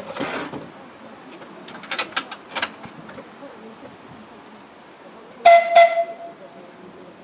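A tram's bell struck twice in quick succession near the end, each strike leaving a short ringing tone: the double ring that tells the driver to move off. A few light knocks and clicks come earlier as a passenger climbs aboard.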